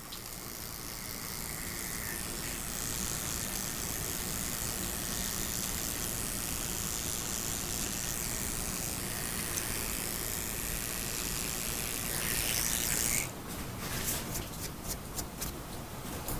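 Hair dryer blowing with a steady rushing hiss, switched off abruptly about thirteen seconds in. Quick snips of barber's scissors follow near the end.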